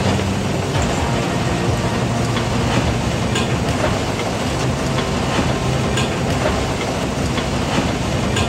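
A vehicle running with a steady rumble and many irregular metallic clanks and rattles.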